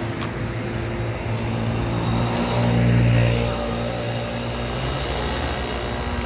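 Road traffic with a motor vehicle's engine passing close by, loudest about three seconds in, over a steady low hum of traffic.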